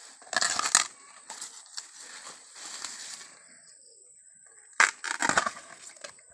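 Fibrous sheaths being torn off a fresh bamboo shoot by hand. The tearing comes in bursts: a strong one about half a second in, lighter ones over the next few seconds, a pause, then another strong burst about five seconds in.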